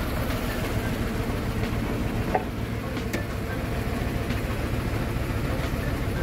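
Isuzu 10PD V10 diesel engine of a grapple truck idling with a steady low rumble, with a couple of light clicks a little over two and three seconds in.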